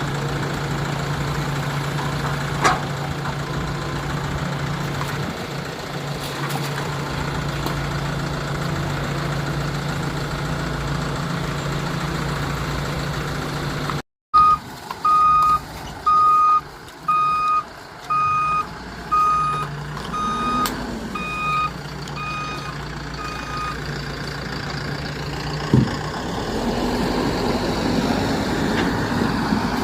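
Diesel engine of a heavy earthmoving machine running steadily. After an abrupt break, a reversing or travel alarm beeps about once a second, around ten times, over the engine, and the engine note picks up again near the end.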